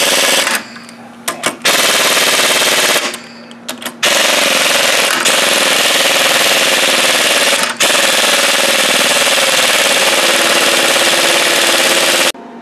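Pneumatic impact wrench hammering at seized cylinder head bolts on a salt-corroded Rotax 587 two-stroke engine. It comes in three runs broken by two short pauses, the last lasting about eight seconds before cutting off near the end.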